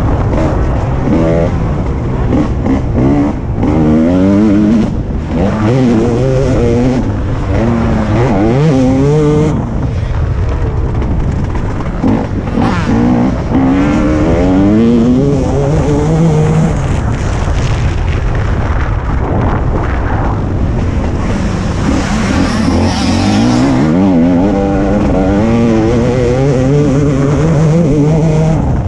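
TM 300 single-cylinder two-stroke motocross bike's engine under hard riding, revving up and down over and over, its pitch climbing again and again as the throttle is opened.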